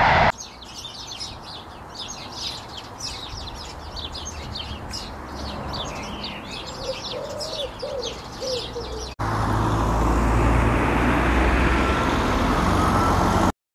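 Small birds chirping and singing in a busy chorus, with a few lower, arched calls about seven to eight and a half seconds in. About nine seconds in the sound changes abruptly to louder, steady road traffic noise with a low rumble, which cuts off just before the end.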